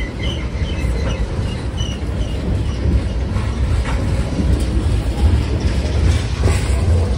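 Great Lakes Central Railroad freight cars, tank cars and an autorack, rolling past close by: a steady heavy low rumble with sharp wheel clicks over the rail joints now and then.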